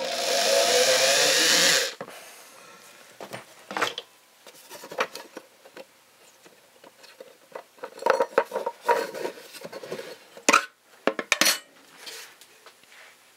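Power drill running for about two seconds as it backs out a screw from a wooden crate lid, stopping abruptly. Then scattered clicks and metal clinks as the steel spam-can opener is worked free of the lid and set down on the metal ammo can.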